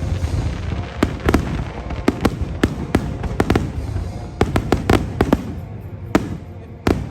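Fireworks exploding in quick, irregular succession: a dozen or more sharp bangs over a continuous low rumble.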